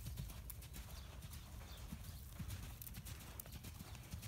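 Thoroughbred mare's hooves thudding on arena sand at the canter: dull, irregular hoofbeats over a steady low rumble.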